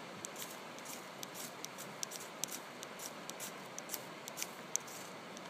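Ferrocerium rod scraped with a steel striker: repeated short, sharp scrapes, about two or three a second, throwing sparks into dry bracken fern used as tinder.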